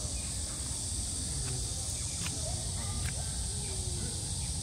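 Background ambience: a steady high-pitched hiss over a low rumble, with faint distant voices and a few scattered short chirps.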